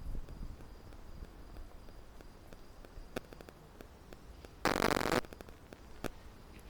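Wind buffeting the microphone with a steady low rumble, a few sharp clicks, and one loud half-second crackling burst about five seconds in.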